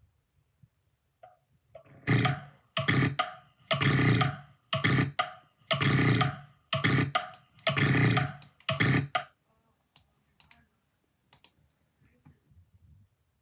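A person snoring loudly in a fast run of about eight harsh bursts, each less than a second apart, which stops abruptly.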